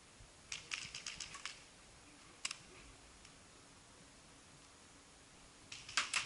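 Distant paintball markers firing rapid shots. A quick string of about eight sharp pops comes about half a second in, then a single pop, then a dense rapid volley starts near the end.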